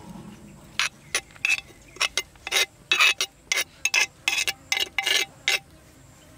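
Scraping inside a clay mortar as ground powder is cleared out of it onto a tray: a run of about fifteen short, irregular rasping strokes, roughly three a second, starting about a second in and stopping near the end.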